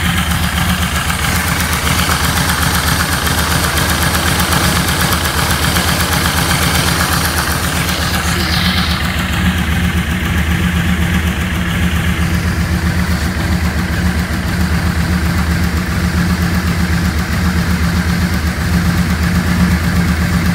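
1986 Yamaha Venture 1300's liquid-cooled V4 engine idling steadily while its four carburettors are being balanced.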